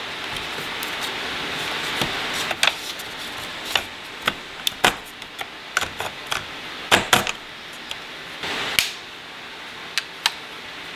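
A hobby knife scraping at a hard plastic radio dash-kit bezel for the first couple of seconds, then a string of sharp plastic clicks and knocks as the trim pieces are handled and fitted, with one more short scrape near the end.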